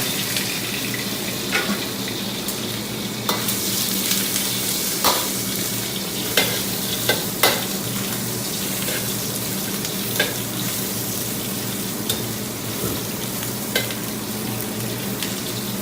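Pieces of cobra meat sizzling steadily in hot oil in a pan, with a utensil knocking sharply against the pan every second or two as the meat is stirred.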